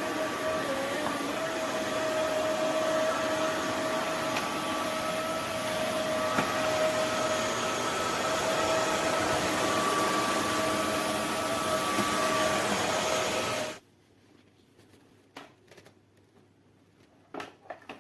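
Roborock F25 RT cordless wet-dry floor vacuum running in max mode: a steady motor whine over a rush of air. It switches off suddenly about fourteen seconds in, followed by a few faint knocks.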